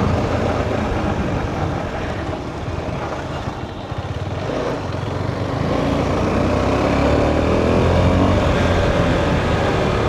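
Motorcycle riding on the road, its engine and wind rumble on the helmet microphone. The engine eases off a few seconds in, then climbs in pitch as the bike accelerates.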